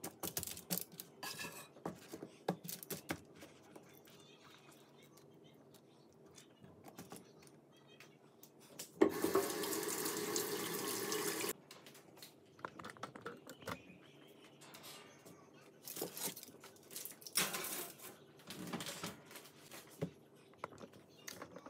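Kitchen tap running into a sink for about two and a half seconds, starting about nine seconds in and cutting off suddenly. Around it, light clicks and rustles of potato wedges being placed on a foil-lined sheet pan.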